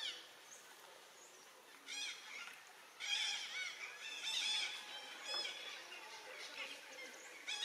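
Infant pig-tailed macaque crying: short runs of high-pitched, arching squeals, the loudest and most frequent from about three to five seconds in.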